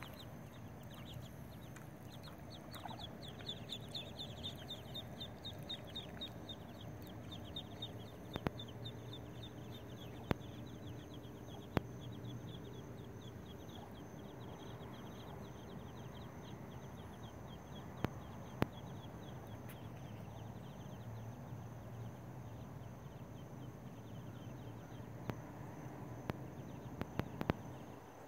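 Muscovy ducklings peeping: a fast run of short, high peeps, several a second, that fades away after about twenty seconds as the brood swims off. A steady low hum lies underneath, with a few sharp clicks.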